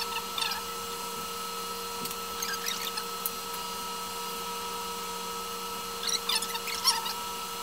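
Corded electric hair clippers running with a steady hum. Three times the hum is joined by brief crisp crackling as the blades cut through hair.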